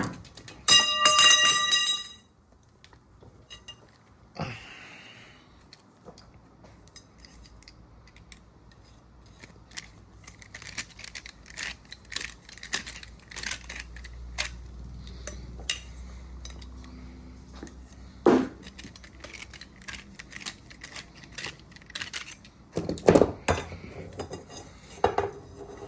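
Deburring and scuffing the end of a freshly cut copper pipe: metal scraping and rubbing with scattered light clinks. A short, loud ringing squeal comes about a second in.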